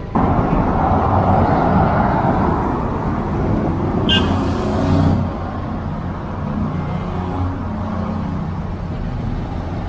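Road traffic on a multi-lane city street: cars driving past with steady engine and tyre noise, and a brief high squeak about four seconds in.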